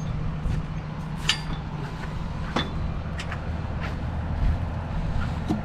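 Tractor engine running steadily with a low drone, with several sharp metallic clinks and knocks over it.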